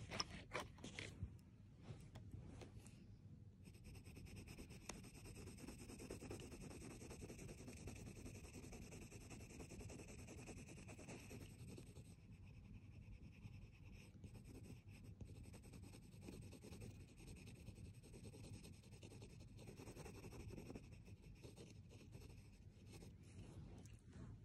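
Faint scratching of a colored pencil on paper as hair is shaded in, with a flurry of quicker, louder strokes in the first few seconds.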